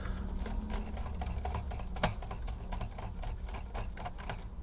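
Small hand screwdriver working laptop screws out of the plastic case: a run of light, irregular clicks and ticks, one sharper about two seconds in, over a low steady hum.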